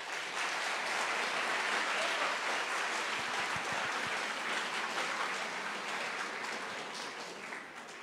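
Audience applauding, dying away toward the end.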